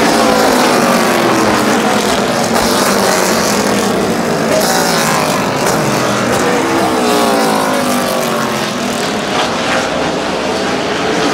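V8 engines of NASCAR stock cars racing past one after another on a wet track, each engine note sliding in pitch as a car goes by, over a steady hiss of spray and crowd noise.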